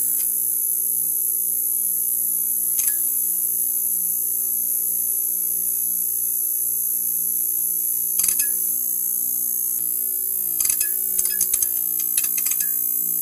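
Neon sign buzzing: a steady electrical hum under a high, hissing whine. Sharp crackling clicks break in about three seconds in and again about eight seconds in, then come in a quick cluster near the end.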